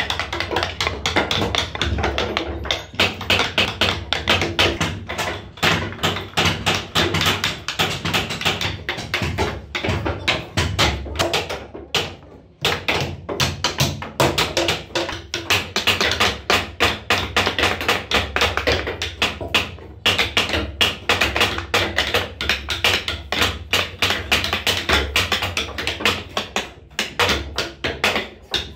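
Wooden mallet striking a small carving chisel in quick, steady taps, several a second, as the chisel cuts a relief pattern into a wooden board. The taps break off briefly about midway.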